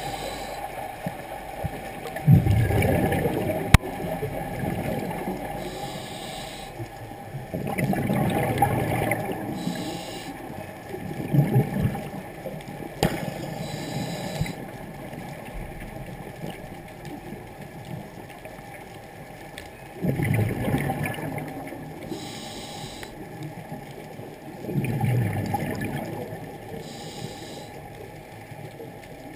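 Scuba regulator breathing heard underwater: a short hiss on each inhalation followed by a gush of rumbling exhaust bubbles, the cycle repeating every few seconds.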